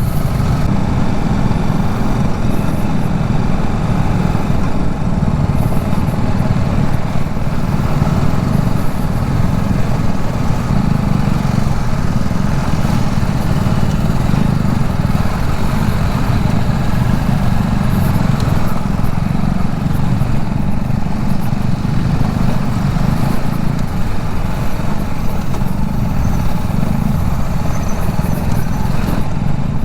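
TVS Apache motorcycle engine running steadily under way, a continuous low drone.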